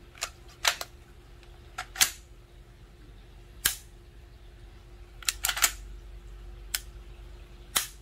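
A string of sharp metallic clicks and clacks, irregularly spaced, from an FN Five-seveN pistol being worked by hand: the slide being cycled, and the trigger dry-fired and let out to its reset.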